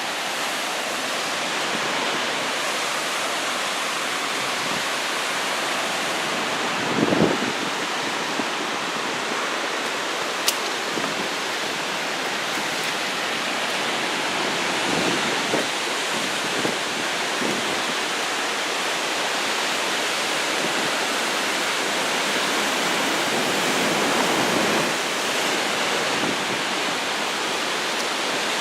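Heavy surf, rough after a typhoon: a steady wash of breaking waves. A gust of wind buffets the microphone about seven seconds in.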